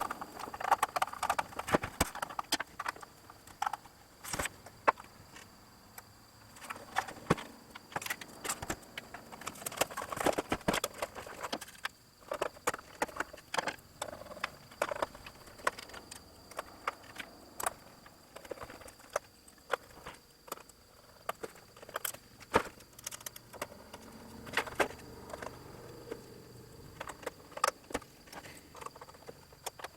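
Irregular clicks, taps and light knocks from an oscilloscope's parts and case being handled while it is put back together after repair.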